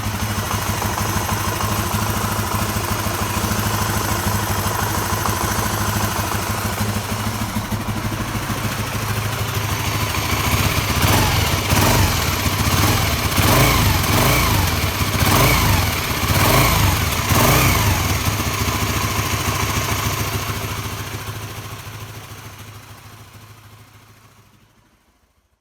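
Honda GB250 Clubman's air-cooled single-cylinder four-stroke engine idling, blipped several times in the middle with the revs rising and falling, then fading out near the end.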